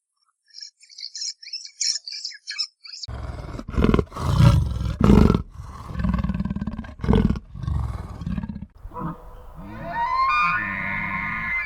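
Quick high chirps of a small bird, then, about three seconds in, a big cat roaring and growling in a series of loud, deep, rough pulses. Near the end a higher pitched sound rises in pitch.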